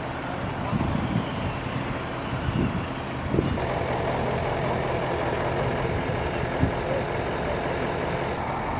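Fire truck's diesel engine idling steadily, with a few short knocks. The background changes suddenly a little over three seconds in.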